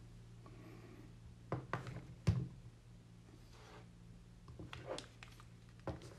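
Scattered soft knocks and clicks as a folded plastic DJI Osmo Mobile 3 gimbal is handled and turned over on a wooden tabletop, the sharpest knock a little over two seconds in, over a steady low hum.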